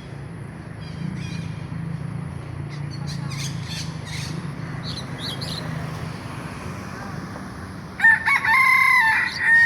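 Rooster crowing once near the end, a loud cock-a-doodle-doo in several connected parts. Before it there are only a few faint high chirps over a steady low hum.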